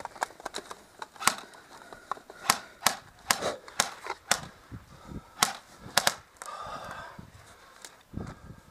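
Airsoft guns firing a string of single shots at an uneven pace, sharp cracks spaced a fraction of a second to about a second apart, some much louder than others.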